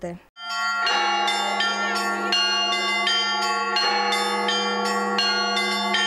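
Russian Orthodox church bells rung by hand, with ropes pulled on the clappers. Quick repeated strikes of the smaller bells, about three a second, ring over the steady hum of a lower bell. The ringing starts a moment in.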